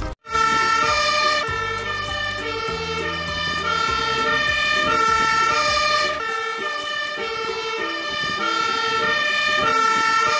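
Two-tone siren of a Magirus aerial ladder fire engine, switching back and forth between a high and a low note.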